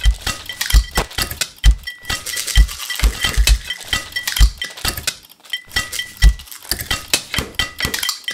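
A rhythmic beat built from kitchen sounds: quick clicks, clinks and scrapes of utensils, paper and packaging, over deep thumps and a short high ring that keeps recurring.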